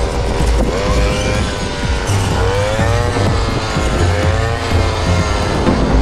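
An engine running steadily under background music with a wavering melody.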